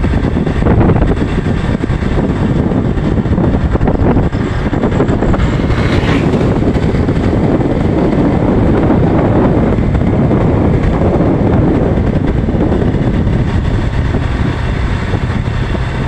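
Motorcycle ride at speed: loud, steady wind rush on the microphone over the engine and road noise.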